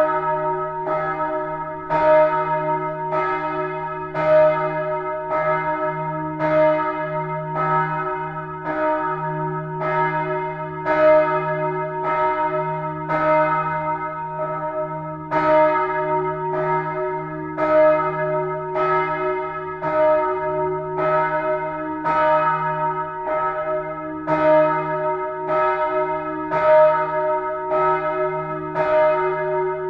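Church bells of the Neumünster collegiate church in Würzburg ringing. Clapper strokes come about every half second without pause, over a low hum that rings on between them.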